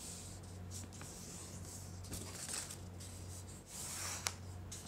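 Sheet of paper rustling and sliding under the hands as it is creased and lifted, in soft swishes with two louder ones in the second half. A steady low hum runs underneath.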